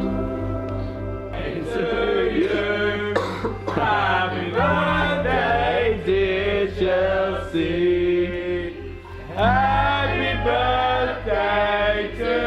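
Background music: a song with singing voices over a steady pulsing bass.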